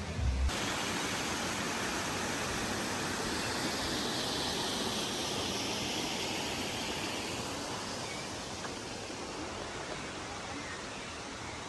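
Waterfall: a steady rush of falling water, growing slightly softer toward the end. Background music cuts off about half a second in.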